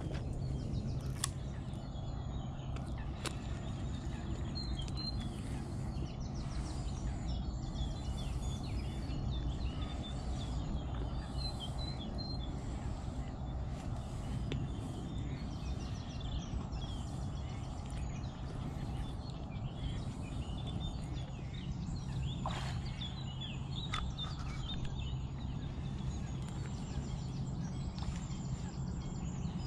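Birds singing and chirping over a steady low rumble of outdoor background noise, with a few light clicks.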